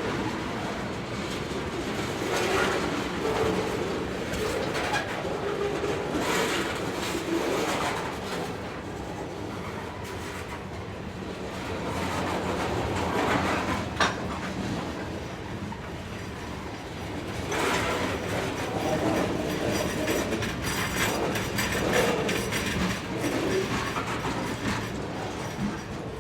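Slow-moving train passing, with the rumble of rolling wagons and recurring clusters of wheel clacks over rail joints that swell and fade, and a single sharp clank about halfway through.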